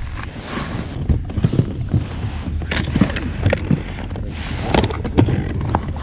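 Wind rumbling on the microphone aboard a small boat on open water, with a few short knocks.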